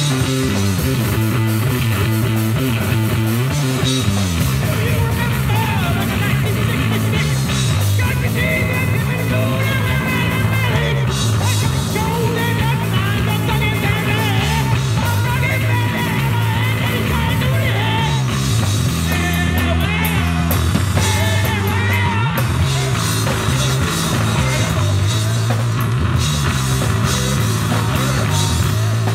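A live rock band playing: a distorted electric bass and a drum kit, with a voice singing over them in places.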